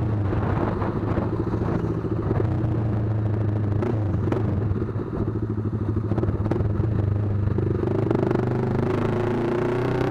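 Z200S motorcycle with an SC Project aftermarket muffler on a 51 mm elbow, its exhaust running steadily under way, the engine note climbing near the end as it accelerates.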